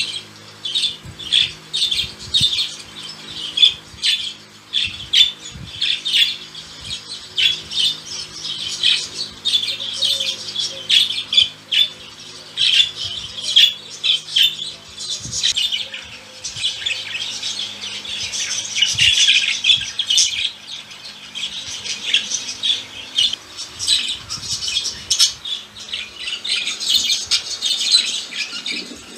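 Pet budgerigars chattering in their cage: a continuous run of short squawks and quick warbling chirps, with denser warbling past halfway and again near the end.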